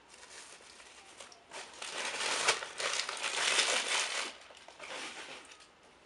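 Crackly crinkling and crumpling noise. It builds up about a second and a half in, is loudest in the middle, then comes back in a shorter spell about five seconds in.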